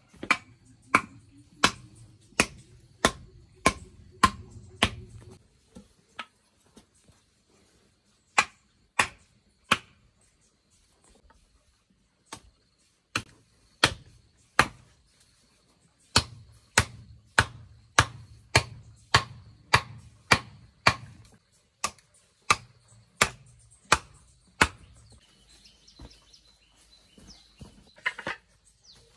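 Repeated chopping blows from a hand tool striking wood, about one and a half a second, in runs separated by short pauses.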